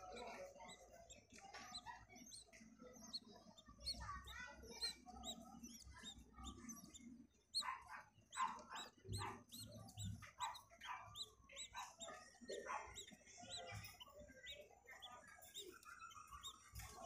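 Budgerigar chicks cheeping faintly: a busy run of short, high chirps, with louder, lower calls around the middle.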